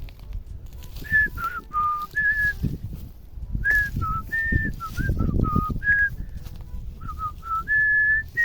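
A person whistling a short tune in clear single notes, stepping up and down in pitch. Low rumbling noise runs underneath.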